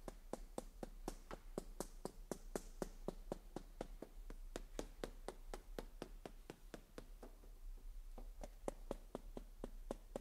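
Mallet tapping quickly and evenly, about five light taps a second, tamping freshly poured concrete in a steel tray to vibrate the water up to the surface.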